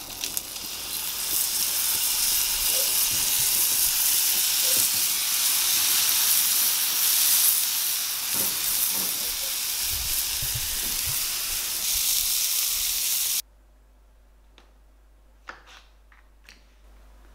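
Two steaks sizzling on the preheated hotplate of a gas barbecue: a loud, steady hiss that starts as they go on and cuts off suddenly about thirteen seconds in. After that it is quiet, with a few faint clicks.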